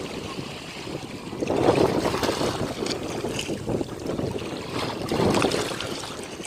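Ocean waves washing onto the shore, swelling about one and a half seconds in and again about five seconds in.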